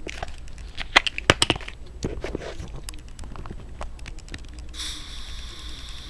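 A few sharp handling clicks and knocks from a homemade spud/dowel pistol in the first couple of seconds. About five seconds in comes a steady hiss as fuel gas is let into its combustion chamber.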